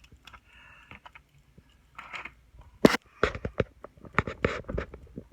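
Close handling of plastic toy packaging: scattered clicks at first, then a dense run of sharp clicks and crackles in the second half.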